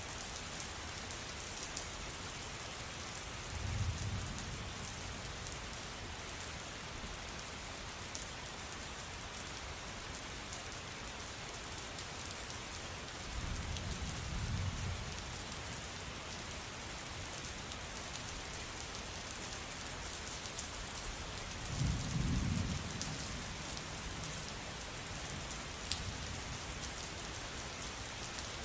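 Steady rain falling on a surface, with fine drops ticking through it. Three brief low rumbles of distant thunder rise and fade within it, the last the strongest.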